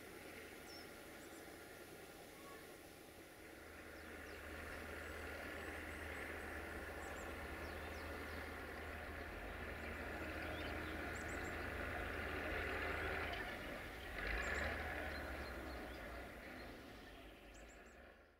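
Distant engine running steadily, swelling slowly over several seconds with a brief louder surge near the end, then fading out. Small birds chirp faintly throughout.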